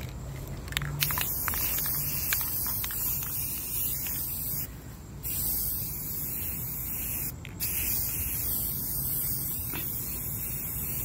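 Aerosol can of Rust-Oleum Metallic spray paint hissing as it is sprayed. The spray starts about a second in and breaks off briefly twice, once near the middle and again a couple of seconds later.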